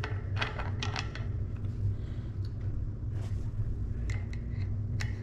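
Scattered light metallic clicks and taps of tools and bike parts being handled during a freewheel install, over a steady low hum.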